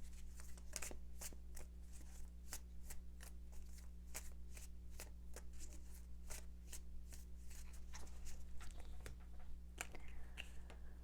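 Tarot cards being shuffled by hand: a run of soft, quick card clicks and flicks, several a second, over a low steady hum.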